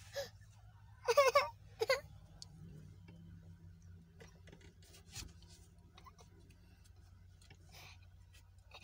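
A toddler crying and whimpering in a few short, strained bursts within the first two seconds, then falling quiet over a steady low hum.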